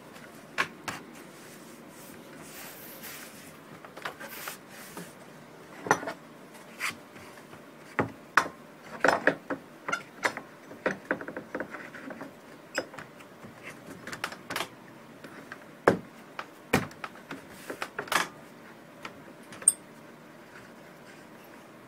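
Irregular light clicks, taps and clinks of hand tools being handled at a wooden workpiece, with a few sharper knocks standing out.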